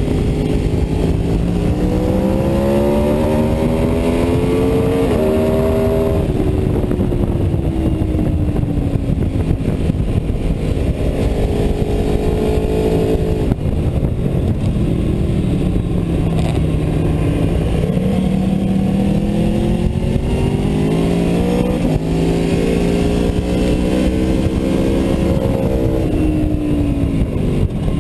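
Aprilia Tuono V4's V4 engine at track pace, heard onboard: its pitch climbs, then falls, several times over as the rider opens and closes the throttle through the corners, over a steady rush of wind.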